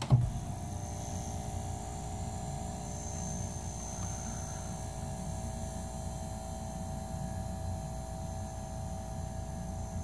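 Igloo mini fridge compressor (EYA40U6L) kicking on as it is plugged in and then running with a steady hum. There is no repeated clicking: the new start relay and overload switch are letting it start and keep running.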